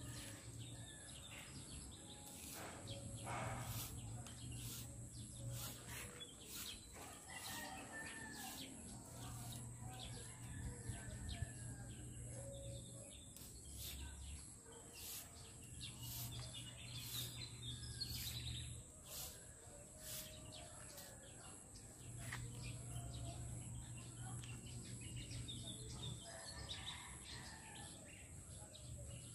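Outdoor ambience of birds chirping over a steady high tone, with many scattered light clicks from nylon netting being handled and a low hum that comes and goes every few seconds.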